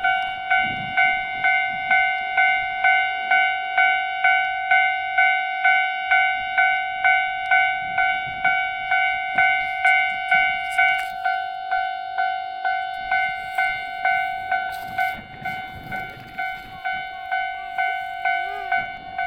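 Japanese level-crossing warning bell ringing, one clear ringing tone repeated about twice a second, steady throughout. A low rumble comes in about two-thirds of the way through.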